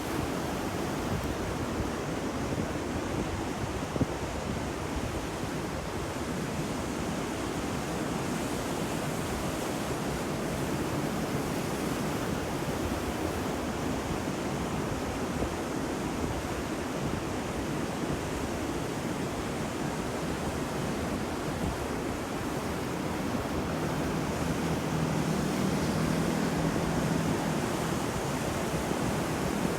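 Ocean waves washing onto a shore in a steady, continuous surf, swelling a little louder over the last few seconds.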